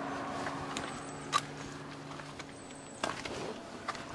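Steady hum of a small motor with several even tones, stopping a little over two seconds in. A sharp click comes shortly before it stops, and a few light knocks of handling follow near the end.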